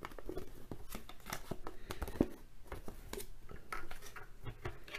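Hands handling a small plastic Kinder Joy bowling set toy: irregular light clicks and short rustles.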